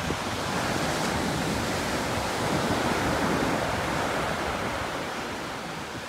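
Small waves breaking and washing up a sandy beach, a steady hiss of surf that swells and then eases off toward the end.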